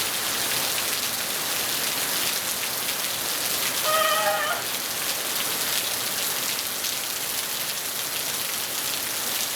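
Rainstorm: rain falling steadily, an even, dense hiss of drops hitting surfaces. A brief high pitched sound, under a second long, cuts through about four seconds in.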